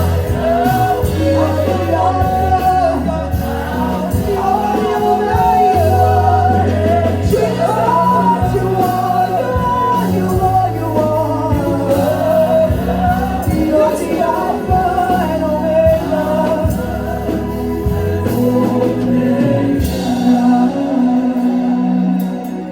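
Live gospel worship music: singing over a band with sustained bass notes.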